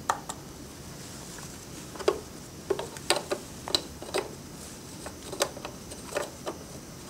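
Scattered light clicks and taps, about a dozen, of plastic being handled on a dental air polisher's powder chamber as its cap is set back on.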